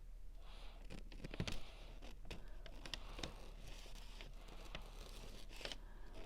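Faint handling noises: scattered small clicks and taps with a light scraping rustle, as painting materials are moved about by hand.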